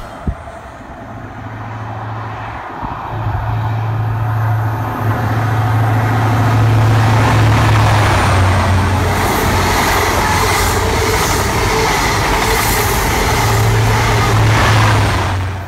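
An LNER Class 43 HST diesel power car passing a station platform at speed, its engine drone building as it approaches and goes by. It is followed by the rush of its Mark 3 coaches, with rail clatter, over the second half.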